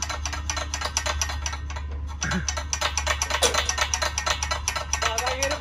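A tractor's diesel engine running steadily, giving a rapid, even clatter over a low hum. A man's voice cuts in briefly a couple of seconds in.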